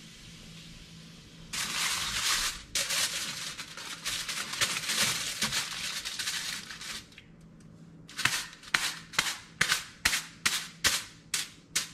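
Aluminium foil crinkling as it is handled and pressed down over a baking dish, then, after a short pause, a quick even series of sharp pops, about two or three a second, as holes are punched through the taut foil with a pointed tool.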